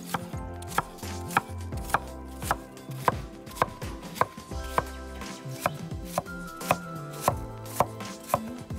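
Chef's knife chopping apple on a wooden cutting board: even knocks of the blade on the board, about two a second.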